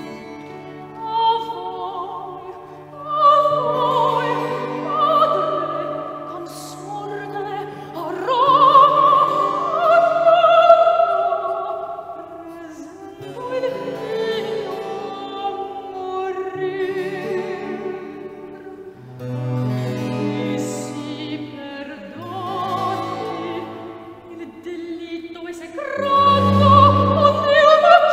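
A classically trained soprano singing with vibrato in an operatic style, over a baroque continuo accompaniment of cello, long-necked lute and harpsichord.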